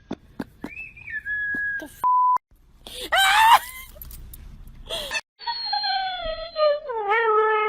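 A pet's drawn-out wailing and howling calls across quick clip cuts: a shriek rising in pitch about three seconds in, then a long wavering wail that slides down in pitch. A short steady beep sounds about two seconds in.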